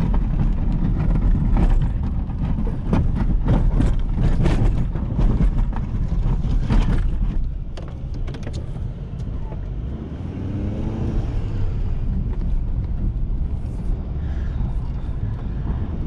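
Ford F-350's 6.7-litre Power Stroke turbo-diesel V8 running with a heavy low rumble, and a run of short knocks and rattles through the first half.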